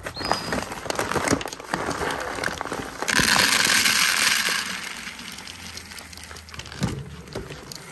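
Dry feed pellets poured from a paper bag into a plastic bowl. The bag rustles and crinkles at first. About three seconds in, a loud rush of pellets pours in for a second and a half, then it thins to a softer trickle.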